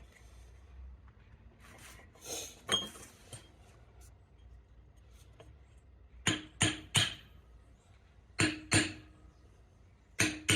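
Oil seal being tapped into a Triumph gearbox housing, metal on metal with a short ring to each tap: three quick taps, then two, then one more near the end. A brief rubbing and scraping comes first, about two seconds in.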